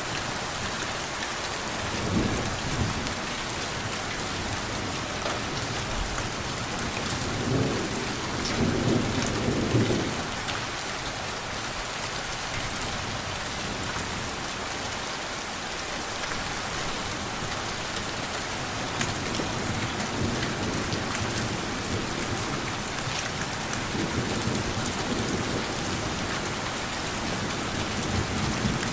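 Steady rain hissing down, with thunder rumbling low beneath it: a short roll about two seconds in, a longer, louder one around eight to ten seconds, and fainter rolls later on.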